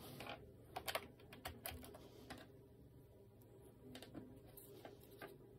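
Faint scattered clicks and light taps of a USB cable and its plug being handled on a desk, brought up to a servo adapter board.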